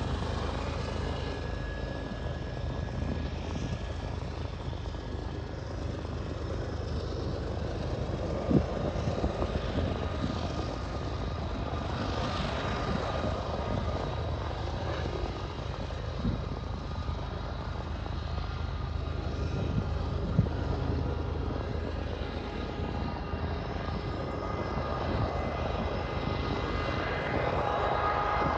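Freight train rolling by: a steady low rumble with a few sharp knocks, about 8.5, 16 and 20 seconds in.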